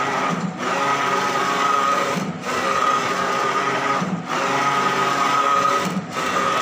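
Large-format digital printer running a print job, its print-head carriage giving a steady whine as it travels across the banner. The whine drops briefly about every two seconds, four times, as the carriage reverses at the end of each pass.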